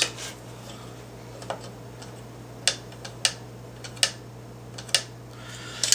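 A handful of short sharp clicks, about five spread over several seconds, as the small plastic and carbon-fibre front suspension parts of a Tamiya F104 RC car are handled and moved. A steady low hum runs underneath.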